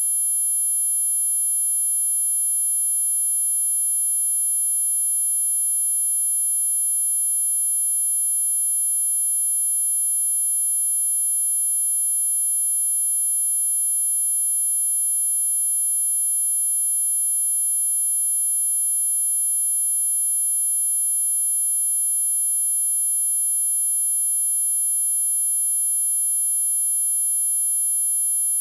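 A steady, very high-pitched electronic whine of the mosquito-ringtone kind, held unchanged without a break, with fainter lower tones beneath it.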